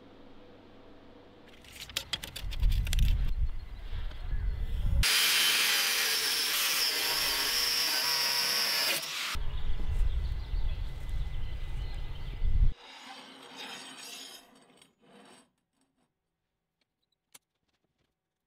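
A power tool working steel, loud and harsh for about four seconds in the middle, set between stretches of low rumble. The sound then falls to near silence with a few light clicks near the end.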